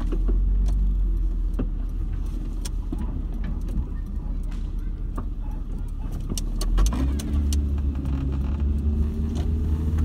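Car engine and road rumble heard from inside a moving vehicle, the engine note climbing as it speeds up about seven seconds in. Faint sharp pops of fireworks are scattered through it.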